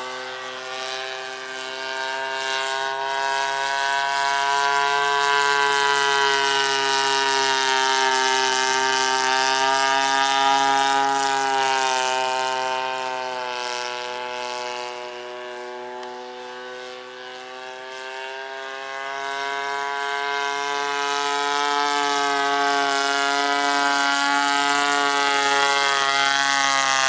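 A radio-controlled model airplane's engine and propeller running in flight, with a steady drone that slowly shifts in pitch. It swells louder as the plane passes near, fades, then grows loud again near the end.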